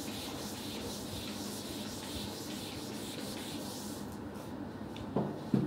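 Whiteboard duster rubbing across a whiteboard in repeated wiping strokes, easing off about four seconds in. Two short knocks come near the end.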